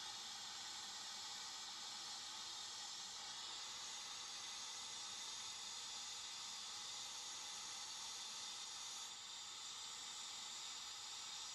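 Brazing torch flame hissing steadily while a copper refrigeration line joint is heated and brazing rod is fed in.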